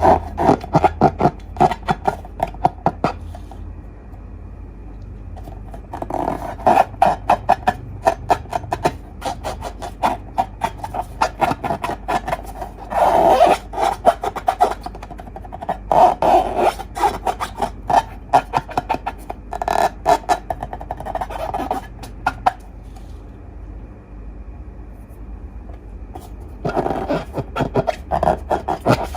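Slime being squeezed and worked by hand, crackling and popping in bursts of rapid small clicks, with short quieter pauses between handfuls.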